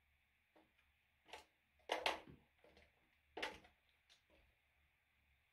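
Small makeup items and containers being handled: a few short knocks and clatters, the loudest about two seconds in, with lighter ticks between.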